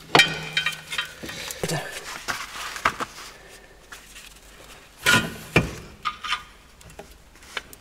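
Scattered metallic clinks and knocks from front suspension parts being worked on a VW Golf mk4: the CV axle's splines going into the new wheel-bearing hub, then a screwdriver levering the ball joint into line with the lower control arm's bolt holes. Two heavier knocks come about five seconds in.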